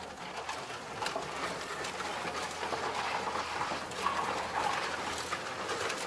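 Car creeping along an overgrown forest track, heard from inside the cabin: the engine drones under a steady rushing of tall grass and brush against the body, with a few light knocks from the rough ground.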